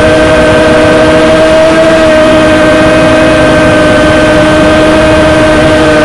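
Drone motors and propellers running, a loud, steady whine made of a few held pitches over a rushing hiss, the pitch hardly changing.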